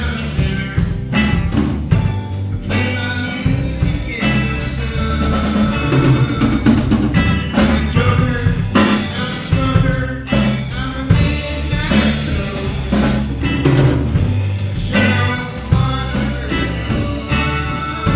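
Small rock band playing a song together live in a room: drum kit keeping a steady beat under electric guitars and bass guitar, with a singer.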